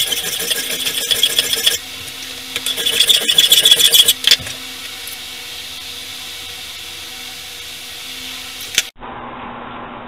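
Rapid rasping scrape of hand-working metal clamped in a bench vise, in two bouts of a couple of seconds each, over a steady low hum.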